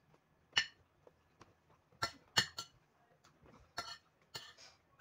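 Metal spoon and fork clinking and scraping against a ceramic plate while scooping rice, about six sharp clinks spread unevenly, with a cluster around the middle.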